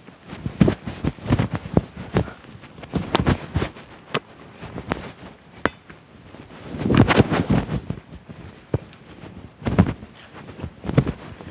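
A run of irregular knocks and clicks, with a louder, denser cluster about seven seconds in.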